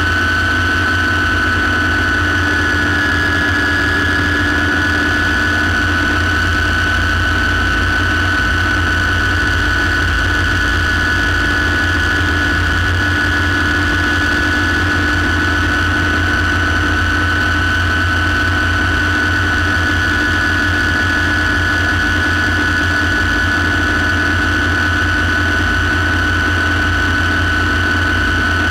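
Light turbine helicopter heard from inside the cockpit in flight: a steady high turbine whine over a low rumble, holding an even pitch and level throughout.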